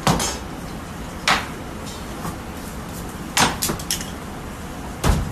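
Several sharp knocks and thumps on a plastic cutting board as knives and a large block of raw beef are handled, with a cluster of quick knocks in the middle and the heaviest, deepest thump near the end.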